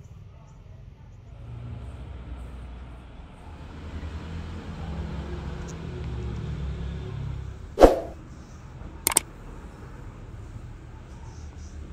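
A low, steady rumble that swells and then eases, with one loud, sharp knock about eight seconds in and a quick double knock about a second later.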